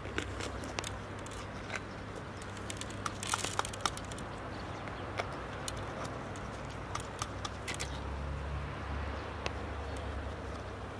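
Green peppers being cored by hand: the crisp stems and seed cores pushed in and snapped out, giving scattered short crackles and clicks, busiest about three to four seconds in. A steady low hum runs underneath.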